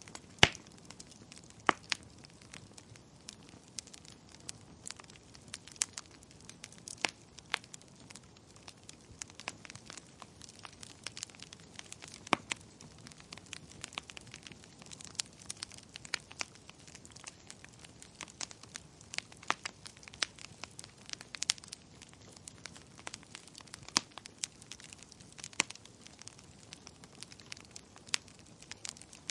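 Wood fire crackling as the logs burn: irregular sharp pops and snaps, a few much louder than the rest, over a faint steady hiss.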